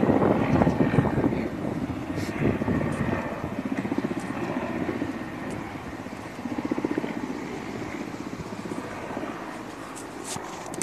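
Helicopter rotor chop in flight, a steady rapid pulsing that grows gradually fainter as the helicopter flies away.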